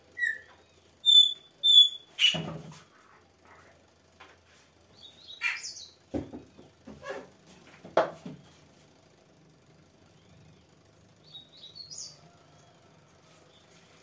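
Short, high bird chirps, several in the first two seconds and a few more around five and twelve seconds in. Between them come knocks and rustles of plastic bottles and a plastic jug being handled, the loudest about two seconds in and again around eight seconds.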